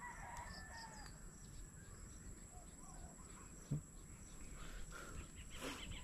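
Faint bird calls in the distance, among them a rooster crowing near the start, with a single light knock a little past the middle.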